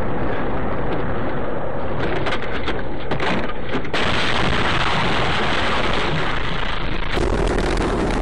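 Steady road and engine noise of vehicles driving, heard from inside, with a few brief clicks about two to three seconds in. The noise changes abruptly about four seconds in and again about seven seconds in, where a steady low hum joins it.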